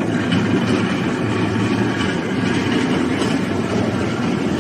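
Concrete mixer pump machine running steadily, with a low, even mechanical hum.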